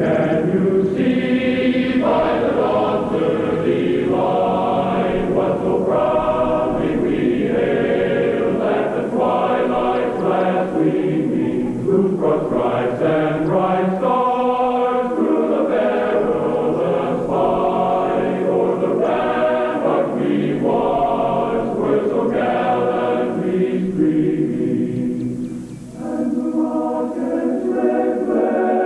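A choir singing the national anthem, in narrow, low-fidelity audio with nothing above about 4 kHz. The singing dips briefly near the end at a phrase break.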